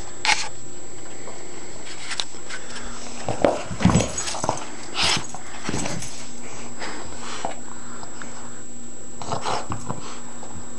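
Boston terrier playing with a tennis ball and a squeaky toy, giving short dog sounds. A cluster of louder knocks and short high sounds comes between about three and six seconds in.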